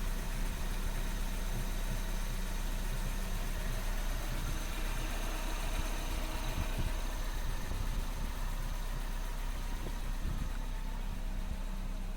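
1.6 THP turbocharged four-cylinder petrol engine idling steadily.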